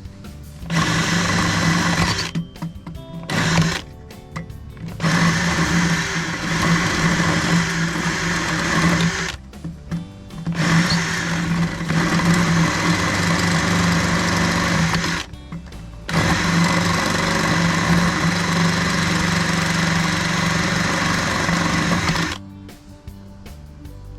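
Handheld electric power tool motor running in about five bursts of one to six seconds each, with short pauses between, as it works at stripped fasteners.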